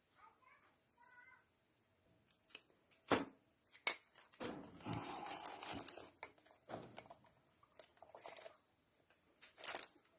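Piston rings, an old ring stacked on a new one, being worked into a piston ring compressor by hand: a few sharp metal clicks and a stretch of scraping in the middle.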